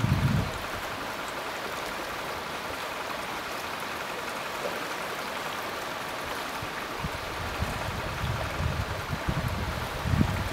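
Steady rushing of a small, fast stream flowing past shelf ice. Low gusts of wind rumble on the microphone at the very start and again through the last few seconds.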